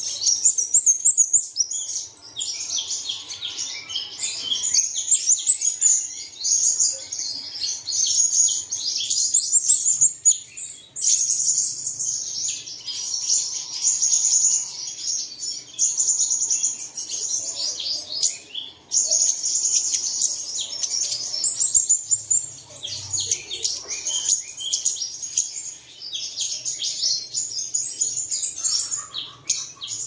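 Sunbirds singing: rapid, high-pitched twittering and trilling notes, almost unbroken, with a couple of brief pauses.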